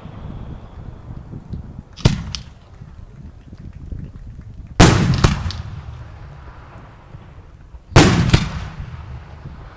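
Firework shells bursting: three loud bangs about three seconds apart, each followed closely by a smaller crack, with a rumbling echo fading away between them.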